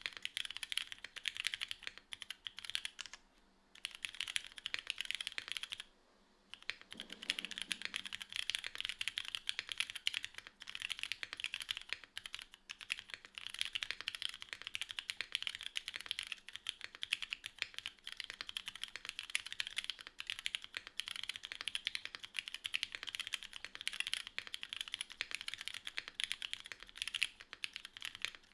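Continuous typing on a Ramune 60 custom mechanical keyboard with Cherry Nixie and RGB Black switches, GMK Black Snail keycaps, a Pei plate and tadpole mount, with no foam dampening: rapid keystrokes, briefly pausing twice in the first few seconds.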